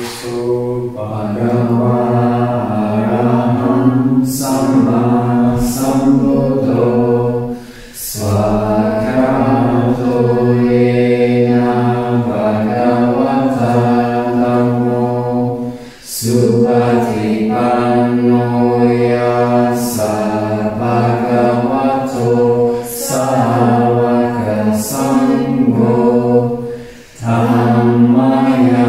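Voices chanting a Buddhist mantra unaccompanied, in long held phrases on a steady low pitch, pausing briefly three times for breath.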